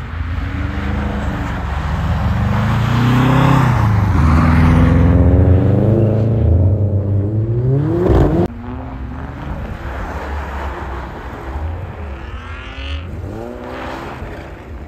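Car engines revving hard as cars slide through snow, the pitch climbing in long pulls. The sound drops suddenly about eight and a half seconds in, and a quieter engine then revs in short rising bursts near the end.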